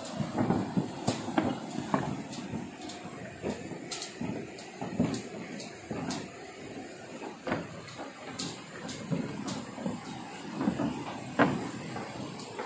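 Footsteps on the wooden plank deck of a suspension footbridge, the boards knocking irregularly underfoot, with a few sharp clicks.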